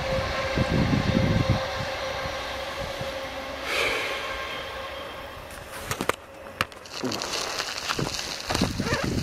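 Passenger train running past across open fields, a steady rumble with a held tone, fading as it draws away. About six seconds in come a few sharp knocks, then a rustling hiss.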